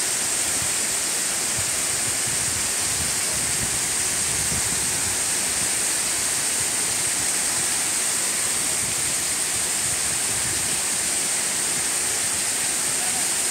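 Waterfalls pouring into a rock pool: a steady rush of falling water.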